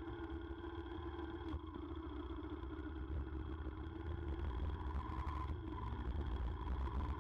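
Yamaha motorcycle engine running as the bike rides along, picked up by an action camera mounted low beside the front wheel: a steady engine tone over a heavy low rumble.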